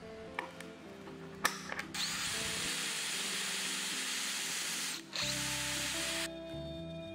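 A power drill runs in two bursts, about three seconds and then about one second, with a brief stop between; each burst starts with a short rising whine. A few clicks and knocks come before it. Background music plays throughout.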